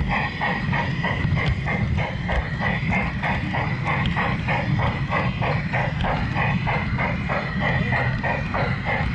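LGB garden-railway train running along its track, heard from on board. A steady, even ticking about four times a second sits over a low rumble and a steady high whine.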